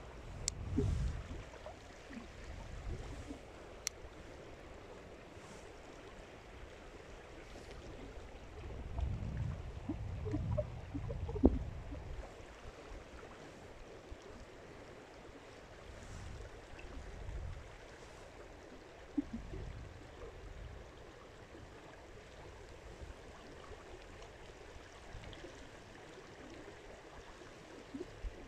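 Faint outdoor ambience by the water: a steady hiss with low rumbling swells in a few stretches and a couple of brief clicks.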